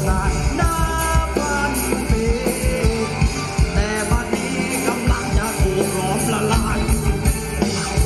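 Thai ramwong dance music from a live band over big loudspeakers: a steady drum beat under keyboard-and-guitar-type melody lines.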